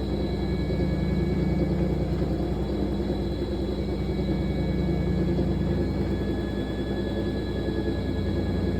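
Fisher & Paykel MW059NZ top-loading washing machine running mid-cycle with a load of towels: a steady motor hum with a thin high whine over it.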